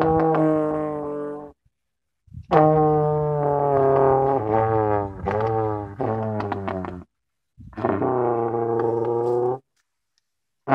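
Slide trombone played to imitate a race car. A held note ends about 1.5 s in, followed by two longer blasts with the pitch sliding and wavering, broken by short silences.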